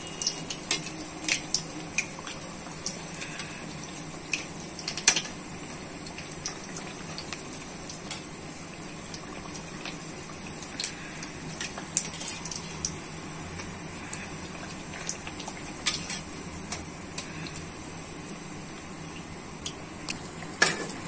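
A samak-flour puri deep-frying in hot ghee in a metal kadhai: a steady bubbling sizzle, broken by a few sharp clinks of a perforated slotted spoon against the pan, the loudest about five seconds in.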